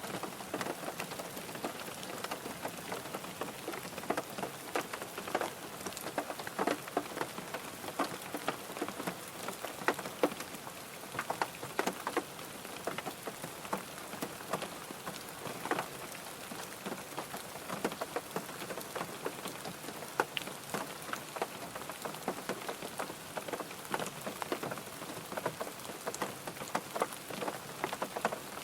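Steady rain drumming on a car's roof and windows, heard from inside the cabin: a dense, irregular patter of individual drop strikes over a continuous hiss.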